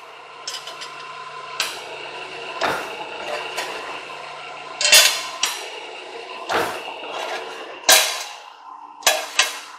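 Dreis & Krump model 335 fully mechanical press brake running with a steady motor and flywheel hum, broken by several sharp metal clanks as the ram cycles on sheet steel and bent parts are handled; the loudest clanks come about five and eight seconds in.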